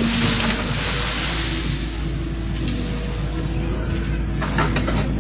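Excavator engine running, its hum stepping up and down in pitch, over a steady hiss, with a few sharp clicks near the end.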